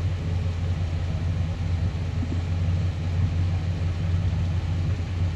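Steady low rumbling hum of an idling engine, cutting off suddenly near the end.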